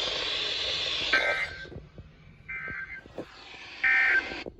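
Emergency Alert System end-of-message signal: three short screeching digital data bursts, about a second and a half apart, over radio hiss that drops out just before the second burst.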